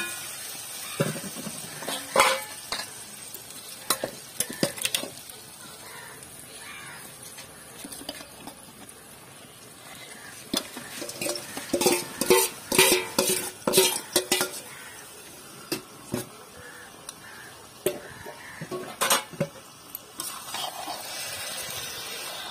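Masala sizzling in hot oil in an aluminium kadai, with a metal spatula scraping and knocking against the pan. About eleven seconds in comes a dense few seconds of clatter and scraping as marinated chicken pieces are tipped in from another pot and scraped out, then another sharp knock near the end.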